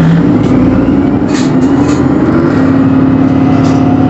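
Orion VII NG hybrid-electric city bus running under way, with a steady low drone and a whine that slowly rises in pitch as it gathers speed. There are a few brief rattles.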